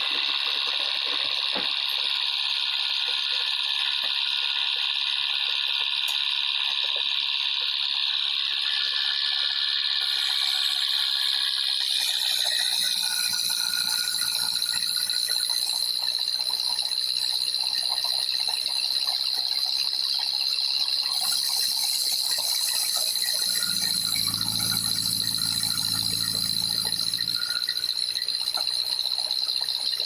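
Band sawmill running, its blade giving a steady high whine, with a rushing hiss that comes in and swells as the blade cuts through a log on the carriage.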